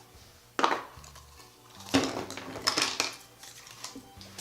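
Large plastic toy capsule from a giant chocolate surprise egg being pried open: a few sharp clicks and clattering knocks of hard plastic, the loudest about half a second, two seconds and under three seconds in.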